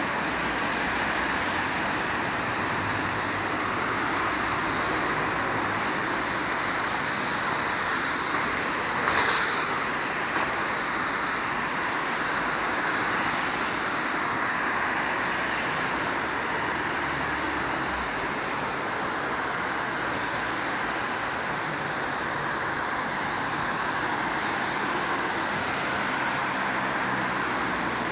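Steady city street traffic: cars and vans passing on a wet road, a continuous hiss of tyres on wet asphalt under engine noise, with one vehicle passing louder about nine seconds in. Recorded through a smartphone's built-in microphone.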